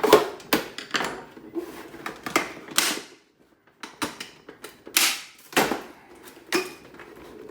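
Irregular sharp clicks and knocks, several of them loud, with a short silent gap near the middle.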